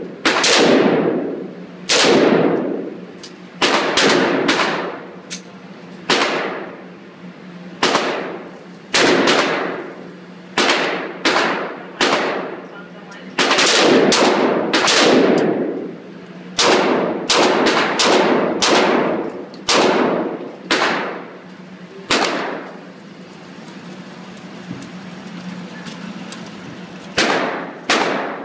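AR-15 rifle firing about two dozen shots at an uneven pace, singly and in quick pairs, each shot followed by a short echoing decay. After a pause of several seconds, two more shots come near the end.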